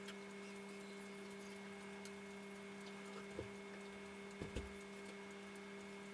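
Faint light taps of a brush dabbing paint stripper onto a wooden rifle stock, over a low steady hum.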